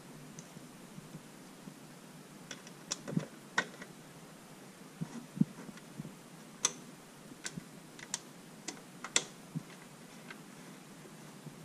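Small screwdriver and screws clicking and tapping against the clear plastic panel of a Saeco Intelia espresso machine as screws are driven in by hand: a scattering of short, sharp, irregular clicks that begins about two seconds in.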